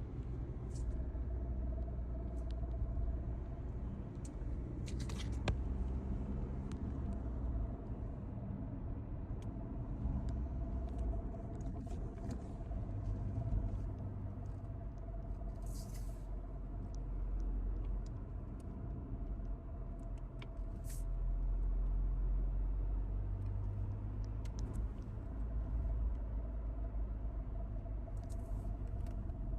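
Hyundai ix35 4x4 on the move: low rumble with a steady humming tone running through it and a few brief clicks. This is the hum that shows up when the throttle is released, from a source the owner has not yet found.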